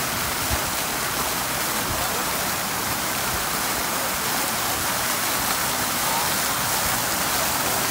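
A row of fountain water jets splashing down into a pool, a steady rushing hiss of falling water.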